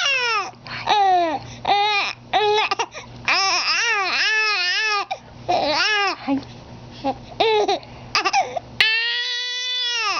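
Baby shrieking with laughter: a string of short, high-pitched squeals that fall or rise and fall, ending in one long held squeal near the end.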